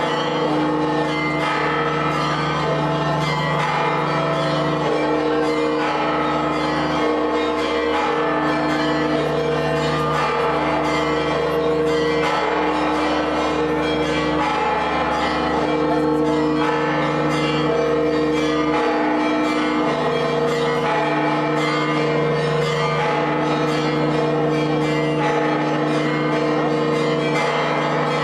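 Church bells ringing in a continuous peal, several bells at fixed pitches sounding over one another.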